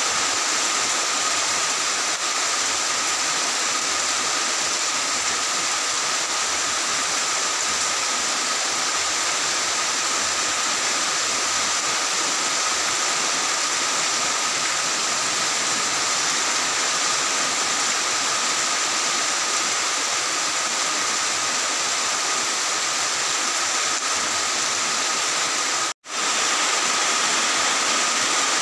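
Heavy rain falling steadily, a dense even hiss that cuts out for a split second near the end.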